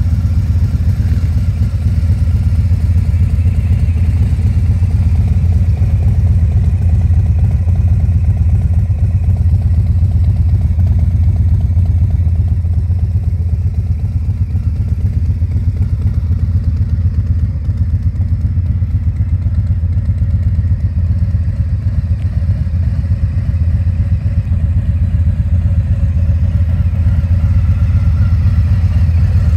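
Harley-Davidson Fat Boy's Milwaukee-Eight 114 V-twin idling steadily through a Vance & Hines stage 1 exhaust, a deep, even rumble with no revving.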